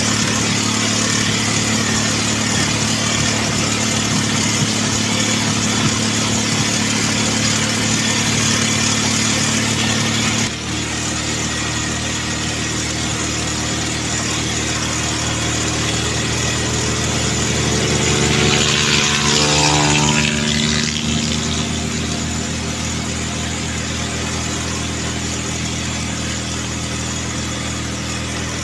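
Motorcycle engine running steadily at road speed, with wind rushing over the microphone. The engine note changes abruptly about ten seconds in, and about two-thirds of the way through another vehicle passes close by, getting louder and dropping in pitch as it goes.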